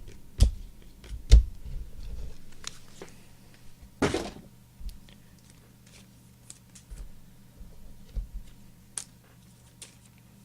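Trading cards and their packaging being handled: a few sharp clicks and knocks in the first couple of seconds, a brief swish about four seconds in, then faint scattered ticks.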